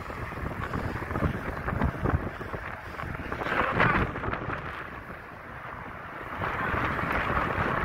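Wind buffeting the microphone: an uneven low rumble under a rushing hiss that swells about halfway through and again near the end.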